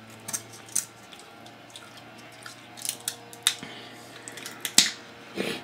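Kitchen shears snipping through king crab leg shell: about half a dozen sharp snips and cracks at irregular intervals.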